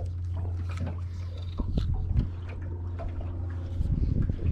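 Small waves lapping and splashing against a small aluminium fishing boat's hull, over a steady low hum, with scattered light clicks.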